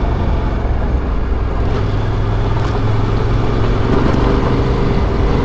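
Yamaha Ténéré 700 motorcycle's parallel-twin engine running steadily under way, its note swelling slightly about four seconds in.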